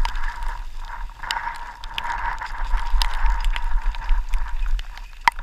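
Mountain bike running fast down a rocky dirt trail: a steady hiss of tyres on wet gravel with frequent clicks and rattles from the bike, and wind rumbling on the microphone. A sharp knock comes about five seconds in.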